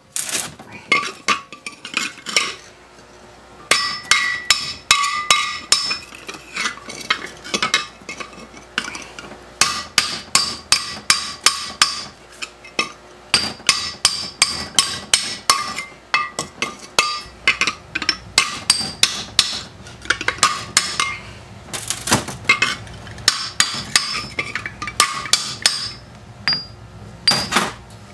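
Hammer blows on a bent thin metal part held against a steel post, struck in quick runs of about two to three a second with short pauses between. Each blow has a metallic ring.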